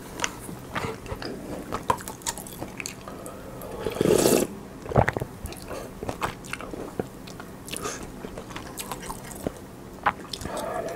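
Close-miked eating sounds of pollock roe soup: chewing, biting and wet mouth clicks, with small clicks of a wooden spoon in the pot. One louder half-second burst of noise comes about four seconds in.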